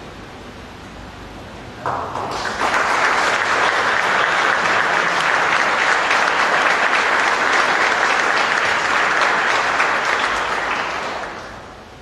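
Audience applauding: the clapping starts about two seconds in, holds steady, and dies away near the end.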